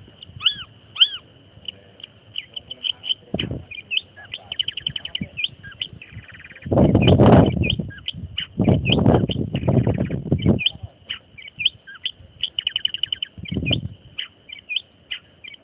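Long-tailed shrike (cendet) singing a fast, continuous stream of short sharp chirps and rapid trills, with louder lower rustling or background noise for a few seconds in the middle.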